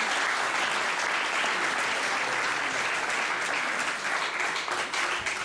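Audience applauding steadily, a dense clatter of many hands clapping together.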